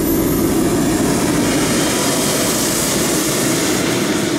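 Turbine engine of an RC model jet running as the jet rolls along the runway: a steady jet roar and hiss with a thin high whine. The whine climbs in pitch at the start, and the hiss swells about halfway through.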